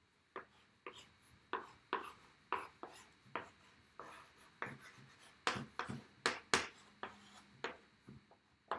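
Writing on a blackboard: a run of short, sharp, scratchy strokes and taps, about two a second, as letters are written.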